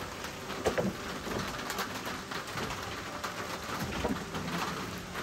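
Rain pattering steadily, with a few knocks of wooden boards set down on a floor, the loudest about a second in.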